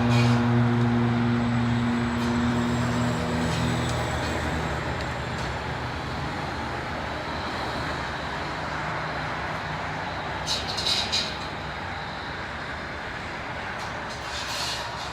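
A heavy vehicle's engine drones and fades away over the first few seconds, leaving a steady noise like road traffic. There are two short hisses about ten seconds in.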